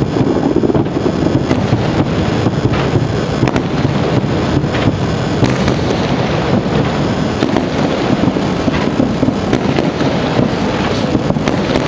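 Aerial fireworks display: a dense, unbroken barrage of shell bursts and crackling bangs.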